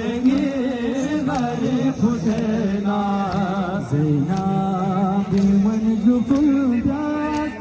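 Male voice chanting a nauha, a Shia mourning lament, in drawn-out melodic phrases with a wavering pitch.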